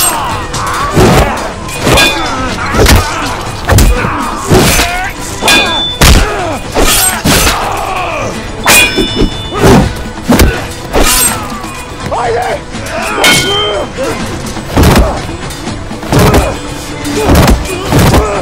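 Sword-fight sound effects over dramatic music: many blows land in quick succession, thuds and clanging steel blades, some with a short metallic ring, mixed with men's shouts and grunts.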